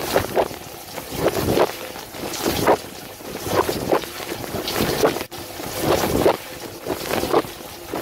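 Water jets spraying and splashing inside a Miele dishwasher during the wash cycle, heard from inside the tub. The rush swells and eases in surges roughly once a second.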